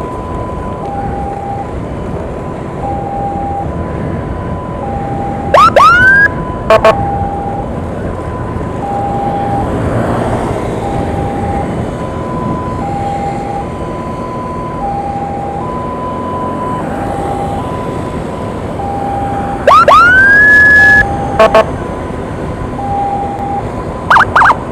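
Ambulance siren in its two-tone hi-lo mode, alternating steadily between a higher and a lower note over road and traffic noise. Twice, about six and twenty seconds in, a much louder siren whoop rises and holds briefly, followed by short sharp blasts, and a few more short blasts come near the end.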